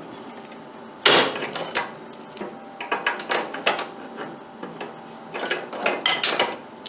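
Irregular metallic clicks, knocks and scrapes of vise grips working a broken-off bolt stub loose on a snowblower handle mount, in several short clusters.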